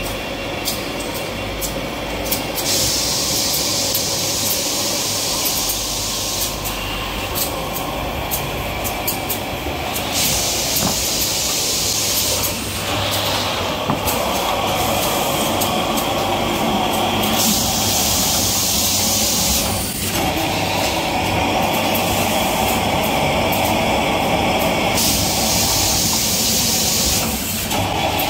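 Automated tissue-paper production line machinery running: a steady mechanical hum and clatter, with a loud hiss that switches on for a few seconds and off again, four times.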